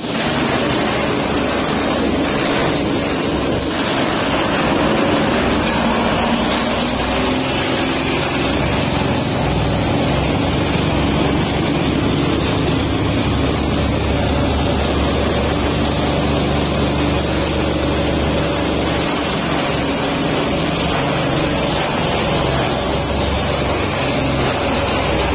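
Corn-stalk chopper driven by an electric motor, running steadily while whole corn stalks are fed in and cut into fine chaff. The sound is a continuous loud mechanical noise of the spinning cutter and the stalks being chopped.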